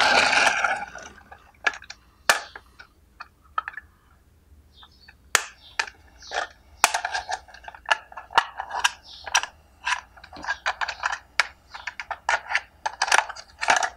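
Plastic toy truck handled and turned over in the hands: a run of light clicks and clacks of its plastic parts, sparse at first and coming thick and fast from about five seconds in.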